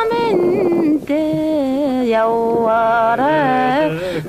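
A voice singing slow, drawn-out notes that waver and bend in pitch, with a short break about a second in.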